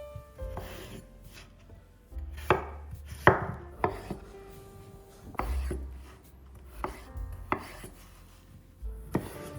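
Knife cutting food on a cutting board: about eight separate strokes at uneven spacing, each a sharp tap with a dull thud, the strongest about three seconds in.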